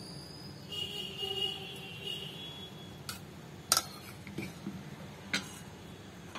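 A few sharp metal clinks in the second half, a steel ladle knocking against the aluminium pressure cooker, over a faint steady background.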